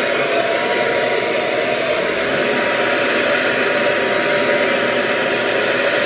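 Hand-held hair dryer running steadily, a constant rush of air with a faint steady whine.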